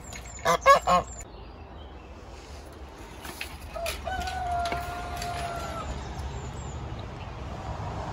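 Domestic goose honking: three loud honks in quick succession about half a second in.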